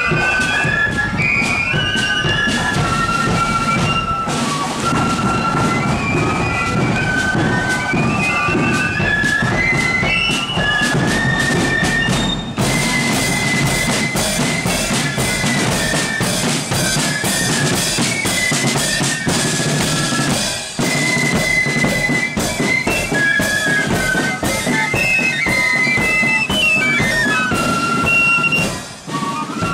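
Marching flute band playing a tune: flutes carry a high melody over rapid side-drum beating and a steady bass drum.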